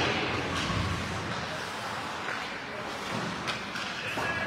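Ice hockey play on a rink: a steady hiss of skates on the ice with a few faint knocks of sticks and puck. It fades over the first second from a louder hit just before.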